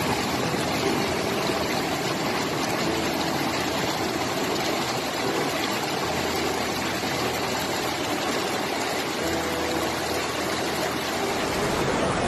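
Muddy flash-flood water rushing down a street, a steady, even wash of flowing water.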